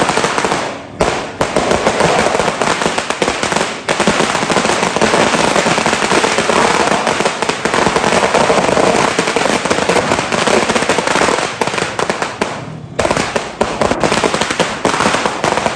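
Dense barrage of firecrackers and fireworks going off together: a continuous crackle of rapid bangs, with a brief lull about a second in and another a few seconds before the end.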